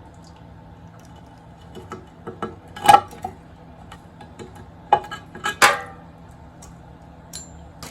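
Metal clinks and clanks of hand tools and engine parts being handled during teardown of a six-cylinder engine, with three louder knocks about three, five and five and a half seconds in.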